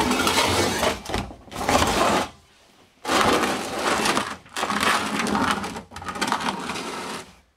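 Chevy Blazer fuel tank dragged across a concrete floor by hand, scraping in about five separate pushes of a second or so each.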